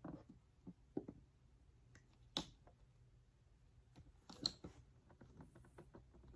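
Faint clicks and knocks from parts of an Oreck XLPRO5 canister vacuum being handled and tried for fit. There are a few scattered taps, the sharpest about two and a half seconds in and a short cluster a couple of seconds later.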